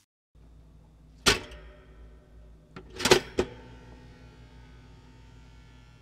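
Pop-up toaster being worked: a sharp click about a second in, then a quick cluster of clicks and clacks about three seconds in, over a low steady hum.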